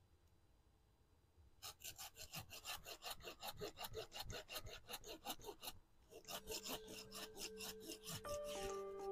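A hand pruning saw cutting through the trunk of a waru (sea hibiscus) bonsai in quick, rhythmic strokes. The strokes start a couple of seconds in, pause briefly about six seconds in, then resume. Background music fades in under the later strokes.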